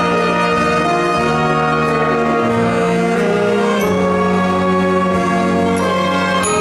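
Youth symphony orchestra playing sustained chords, strings and winds together, the harmony shifting every second or two. A brief bright shimmer comes near the end.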